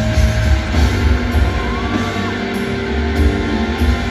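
Live band playing a song in an arena, with a pulsing bass and drums and guitar.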